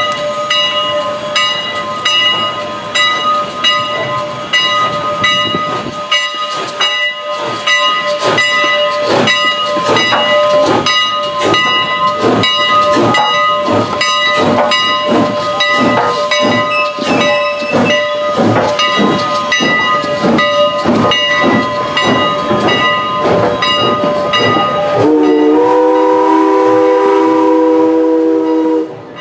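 Steam locomotive pulling out: a steady high hiss and ringing, then exhaust chuffs starting about six seconds in and quickening. Near the end a multi-chime steam whistle, a chord of several tones, sounds for about four seconds.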